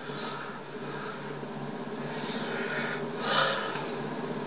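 A few soft breathy puffs from a person, the loudest a little past three seconds in, over a steady low electrical hum and hiss.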